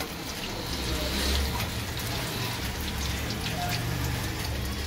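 Breaded chicken drumsticks deep-frying in hot oil in a steel kadai: a steady sizzle with scattered crackles, over a low steady hum.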